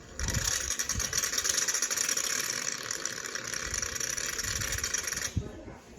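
Aerosol can of shaving cream spraying foam: one long hiss of about five seconds that starts and cuts off suddenly.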